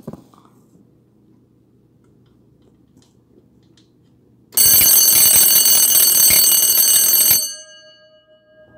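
Oversized red twin-bell quartz alarm clock going off: its bells ring very loudly for about three seconds, then stop suddenly, leaving the bells' tone dying away.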